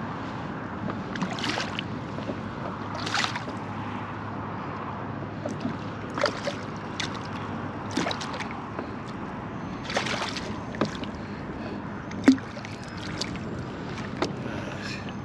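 Steady wind and water noise around a fishing kayak, broken by scattered short swishes and knocks while a hooked redfish is played on rod and reel. The sharpest knock comes about twelve seconds in.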